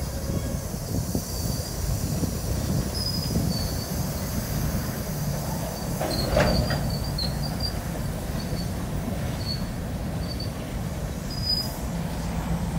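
Freight train of open rock hopper cars rolling past: a steady rumble of wheels on rail, with short high-pitched wheel squeals on and off, the loudest about six seconds in.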